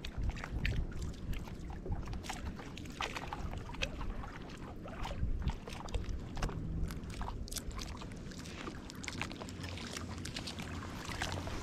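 Wind rumbling on the microphone, with many short, irregular clicks and crackles scattered through it.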